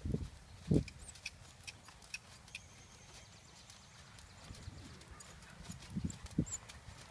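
Hoofbeats of a Friesian horse trotting on arena sand: a few dull, soft thuds, the loudest about a second in and again around six seconds.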